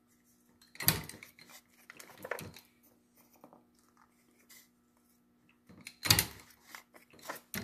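Pin punch driven by a Bridgeport-type milling machine's quill, punching holes through cardboard time-fuse tubes on a steel die mandrel: sharp clunks, the loudest about a second in and about six seconds in, with lighter knocks as the tube is turned on the mandrel. A faint steady hum runs underneath.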